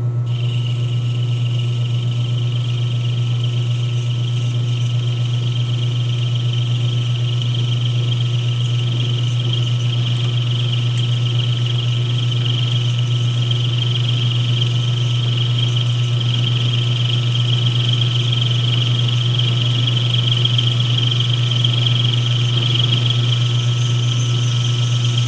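Metal lathe running with a steady low motor hum while the turning tool cuts an aluminium stub on a hand-fed pass, adding a steady high-pitched cutting whine that starts just after the beginning and stops near the end.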